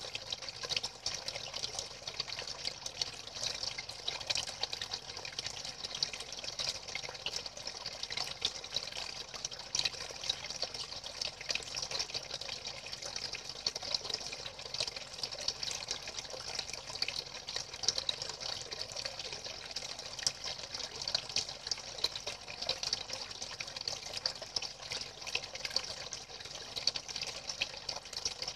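Thin jets of water pouring into a pool of standing water: steady, unbroken splashing with a fine crackle.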